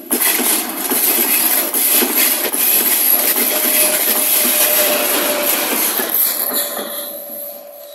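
A 3ES5K electric locomotive passing close by: loud rumble and rapid clatter of its wheels on the rails, with a faint steady tone underneath. It dies away near the end as the locomotive moves off.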